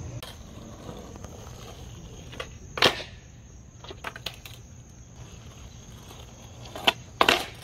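Skateboard knocking on asphalt: a handful of sharp clacks of the deck and tail hitting the street, the loudest about three seconds in and a close pair near the end.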